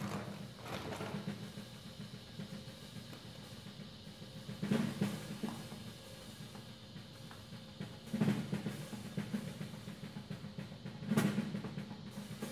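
Drum kit played softly in a steady, rapid roll, with three louder accents about five, eight and eleven seconds in.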